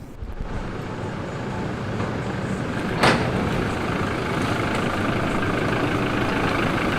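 A motor vehicle's engine running steadily, with a single sharp knock about three seconds in.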